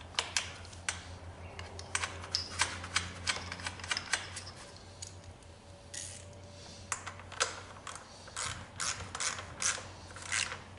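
Socket ratchet clicking in short, irregular runs with sharp metal taps, as the 10 mm nuts holding a lawn mower's recoil starter are run down.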